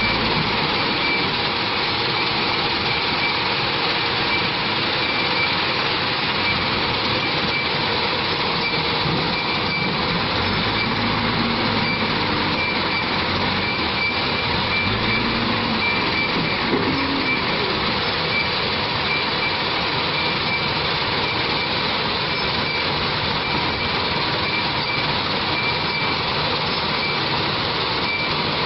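JCB backhoe loader's diesel engine running steadily while the machine works, with a few brief shifts in the engine note about a third and about halfway through.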